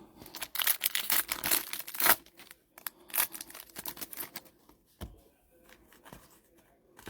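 Plastic wrapping on sports-card packaging being torn open and crumpled: two spells of rough tearing and crinkling, each about a second and a half long, followed by a couple of light knocks.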